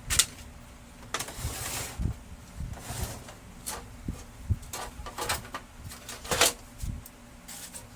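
Plastic cover panels of a Brother DCP-L2540DW laser printer being handled and fitted back on: irregular clicks, knocks and short scrapes.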